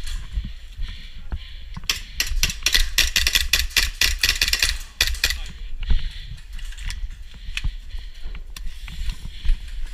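Airsoft pistols firing a rapid string of shots for about three seconds, starting about two seconds in, followed by scattered knocks.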